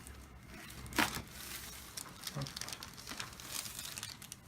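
One sharp crack about a second in, a neck joint popping under a chiropractic neck adjustment, with a fainter knock a little later and light crinkly rustling around it.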